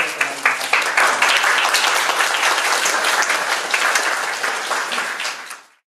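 A room of people applauding, many hands clapping densely. It cuts off suddenly near the end.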